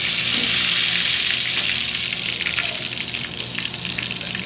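Tomato skins deep-frying in a small saucepan of hot oil: a dense sizzle with fine crackles, loudest in the first couple of seconds and easing slightly after. The skins are wet from blanching, so the oil is spitting hard.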